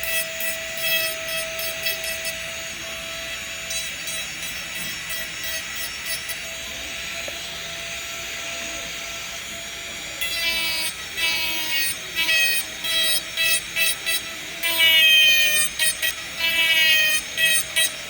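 Steady whine of a small motor. Background music with a chirpy synthesized melody comes in about ten seconds in.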